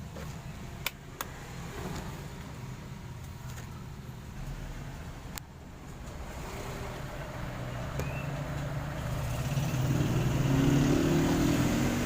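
Electric kettle heating water, its repaired heating element working: two sharp clicks about a second in, then a low rumbling hiss that grows steadily louder as the water warms.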